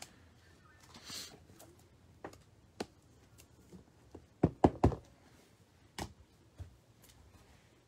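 Trading cards in hard plastic holders being handled and set down on a table: a soft sliding swish about a second in, then scattered clicks and taps, loudest a quick run of three knocks midway.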